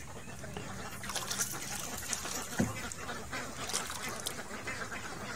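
A flock of white domestic ducks quacking, many short calls overlapping, with a low thump about halfway through.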